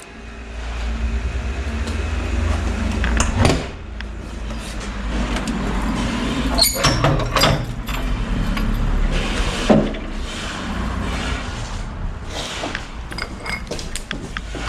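Steady low rumble of street traffic, with the rustling and knocking of a hand-carried camera and a few sharp clicks and knocks.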